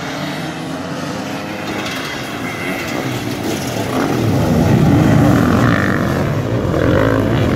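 A pack of enduro motorcycles accelerating hard off a mass start: many engines revving together, growing louder as the bikes pass close by, loudest about five seconds in.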